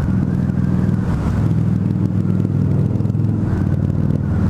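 Harley-Davidson V-Rod Muscle's liquid-cooled V-twin running steadily through Vance & Hines Competition Series slip-on exhausts, picked up by a microphone inside the rider's helmet.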